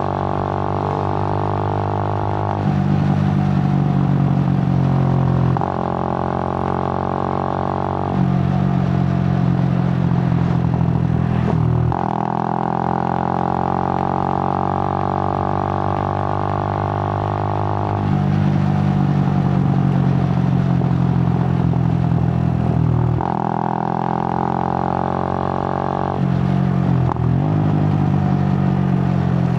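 Suzuki GN125's single-cylinder four-stroke engine running on the road, its note switching back and forth between louder stretches and quieter, lighter stretches about every three to six seconds.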